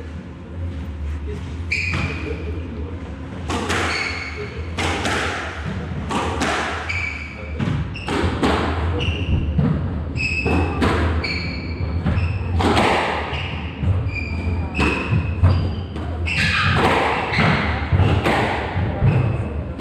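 Squash rally: the ball is struck by rackets and smacks off the court walls again and again, with short high squeaks of court shoes on the wooden floor between the hits.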